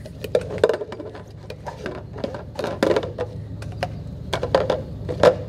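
White disposable cups being pulled off a stack and set down on a tabletop, a quick, irregular run of light clacks and taps as they are built into a pyramid.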